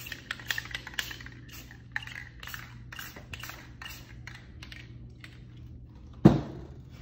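An irregular run of short, scratchy strokes or taps, about two to three a second, as a hand works over the surface of a spray-paint painting. A single loud thump comes about six seconds in.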